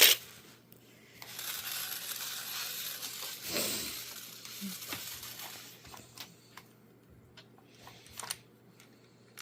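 Crinkling and rustling of packaging being handled for a few seconds, then a few light clicks and taps from small toy parts.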